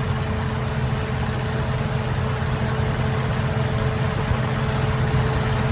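The 5.7-litre Hemi V8 of a 2005 Dodge Durango idling steadily, with the A/C compressor running as the system takes on refrigerant.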